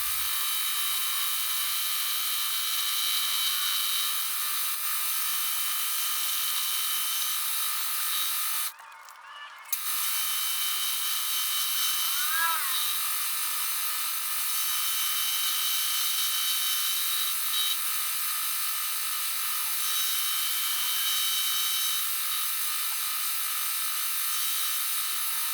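A 3/8-inch carbide end mill cutting a flat into 304 stainless steel bar, running as a steady high whine with several fixed tones. It briefly drops out about nine seconds in.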